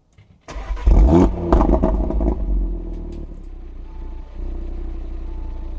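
Audi RS3 8V's turbocharged 2.5-litre five-cylinder engine starting: it catches half a second in, flares up with a quick rise in revs, then drops back and settles into a steady idle.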